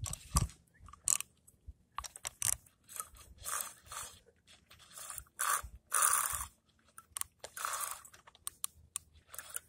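Shakespeare spinning reel being cranked right by the microphone: short scraping, clicking rasps from the handle and gears at an uneven pace of about one turn a second.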